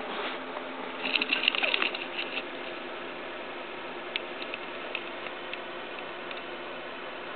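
A quick burst of small clicks and rattles about a second in, then a few scattered single clicks, over a steady hiss.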